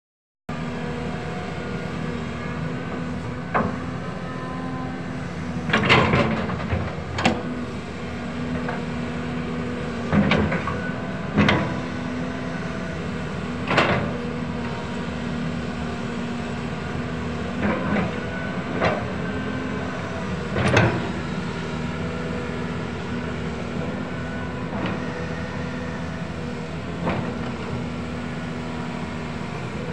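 Caterpillar 320C excavator's diesel engine running steadily under load, with about a dozen sharp metallic clanks from the bucket and boom linkage as it presses and spreads loose soil.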